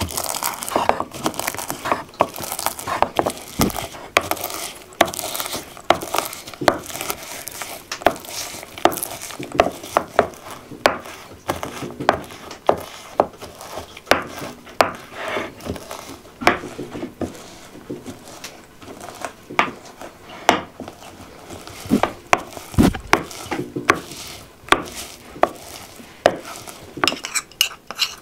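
Wooden pestle pounding in a small wooden mortar: a run of sharp, irregular knocks, a few a second. Near the end a metal spoon scrapes and clinks against the mortar.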